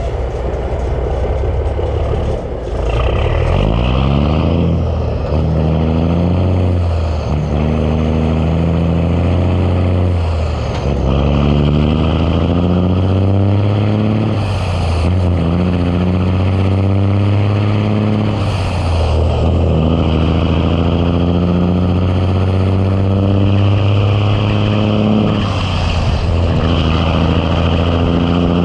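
Ford LT9000's Big Cam Cummins inline-six diesel pulling hard under load and working up through the gears. The engine note rises with each gear, then breaks and drops at each shift, about seven times.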